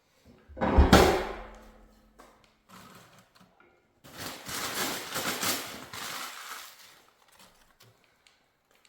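Laying and lighting a fire in a wood stove: a loud knock about a second in with a low hum ringing briefly after it, then a few seconds of rustling and crackling handling noise.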